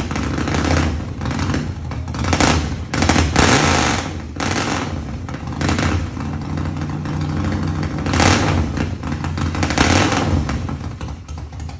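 Harley-Davidson V-twin motorcycle engine running loudly through its exhaust, with several short revs of the throttle rising over the steady idle. The bike has just been rebuilt and is being run up for the first time.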